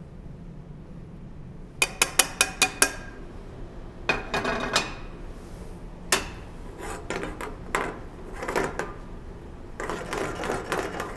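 Serving utensil against cookware and a plate while food is spooned out: a quick run of about six sharp clinks about two seconds in, then scraping with another single clink midway, and more scraping near the end.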